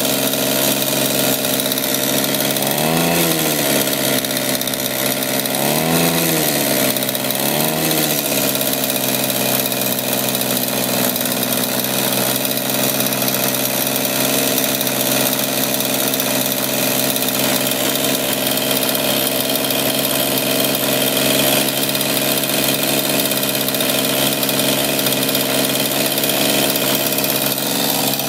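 Small single-cylinder two-stroke engine running on the bench, its crankshaft seal leaking fuel mixture. It is revved briefly three times, about 3, 6 and 8 seconds in, each time rising and falling back, then idles steadily.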